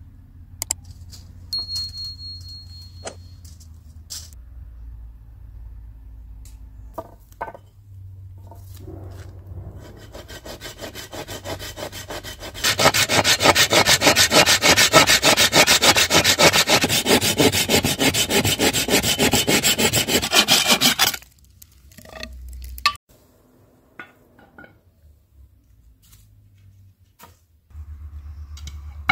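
Fast, evenly repeated rasping strokes, loud for about eight seconds in the middle and then stopping abruptly, with scattered clicks and knocks before and after.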